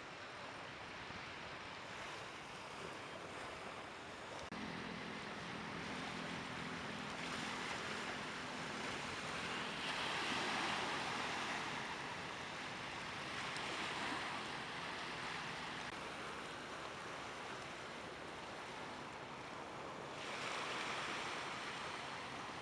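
Sea surf washing onto a beach, the rush of the waves swelling louder every few seconds. A steady engine hum runs under it from about four seconds in until about sixteen seconds.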